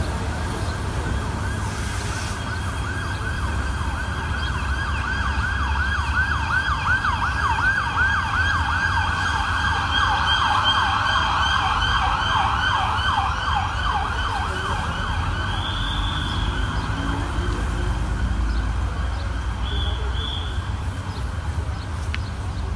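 Emergency vehicle siren in a fast, repeated up-and-down yelp, growing louder to a peak and then fading as it passes. A steady low traffic rumble runs underneath.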